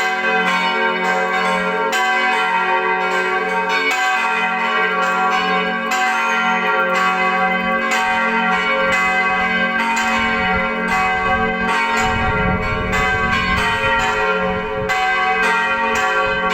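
Church bells of a Catholic parish church ringing continuously, with frequent overlapping strikes keeping up a dense wash of ringing tones. A low rumble comes in about twelve seconds in for a couple of seconds.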